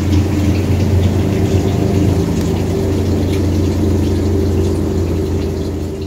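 Haier top-loading washing machine running its wool cycle: a steady motor hum as the drum turns, in the last seconds before the cycle finishes.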